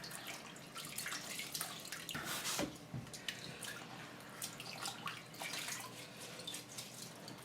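Water splashing and dripping at a kitchen sink as russet potatoes are rinsed and rubbed clean by hand, in irregular small splashes.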